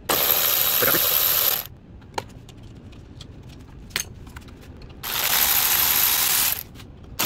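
A ratchet driving a long socket extension, spinning the Audi A6 C6's front carrier bolts loose in two bursts of about a second and a half each, with a few single metallic clicks of tools in the pause between.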